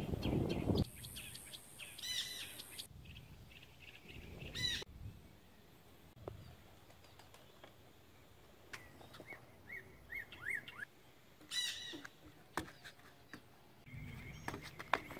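Wild birds calling: scattered short chirps and a few quick runs of notes, quiet in between. There is a brief low rumble in the first second.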